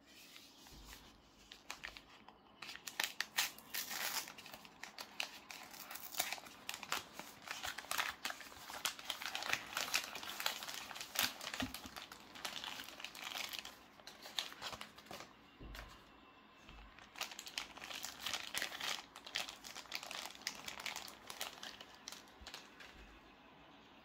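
Paper wrapping crinkling and rustling in quick, irregular crackles as it is unfolded by hand, with a thin clear plastic sleeve crinkling in the later part.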